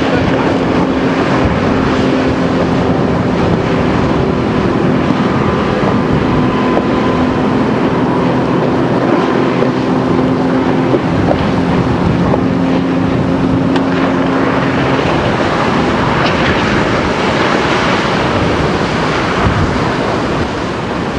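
Speedboat engine of a rigid inflatable boat running at speed with a steady drone over wind noise on the microphone; the engine tone fades out about fifteen seconds in, leaving wind and water noise.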